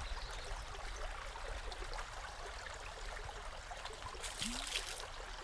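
Steady rushing outdoor ambience like a flowing stream, with a brief rustle about four seconds in.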